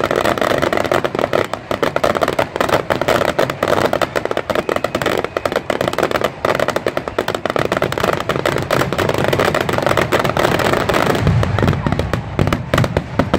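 Aerial fireworks shells bursting in rapid succession, a dense, continuous run of bangs and crackling with no gaps. Deeper booms join in near the end.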